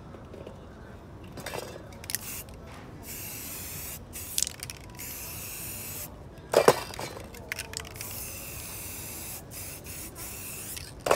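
Aerosol spray-paint cans hissing in several long bursts with short pauses between them as paint is sprayed onto a canvas. A sharp knock about two-thirds of the way through and another at the very end.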